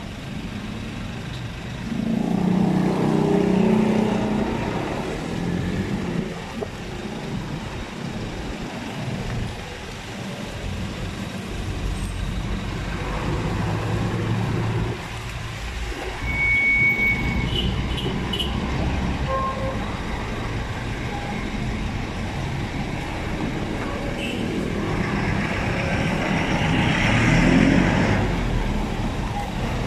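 Street traffic: motor vehicles, trucks among them, going by with a steady low engine rumble, swelling louder as vehicles pass about two seconds in and again near the end.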